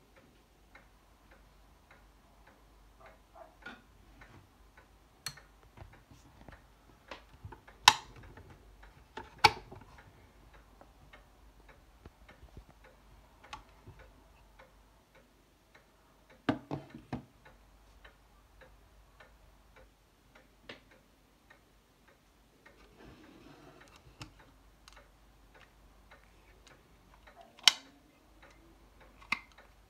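A metal lamp being handled: a run of light clicks and ticks, with a few sharper knocks, the loudest about eight and nine and a half seconds in, another pair around sixteen seconds, and one near the end.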